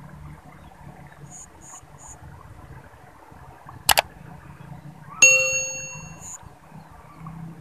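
Two sharp clicks in quick succession near the middle, then a single metallic clang about five seconds in that rings with a bell-like tone and fades over about a second.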